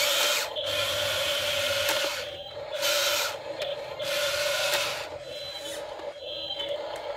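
RC toy excavator's small electric motors and gearboxes whirring in several bursts as the boom and bucket move, over a steady hum, then quieter for the last couple of seconds.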